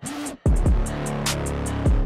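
Background music: a hip hop beat with deep kick drums that drop in pitch, quick hi-hats and a short swooping synth tone at the start.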